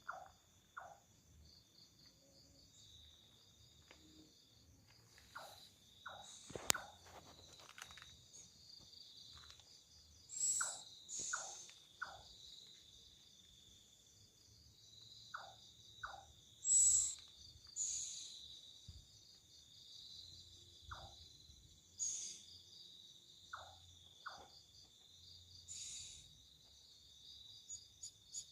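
Night bird calling in short falling notes, mostly in pairs, with several brief harsh high-pitched screeches louder than the rest, over a steady high chirring of crickets.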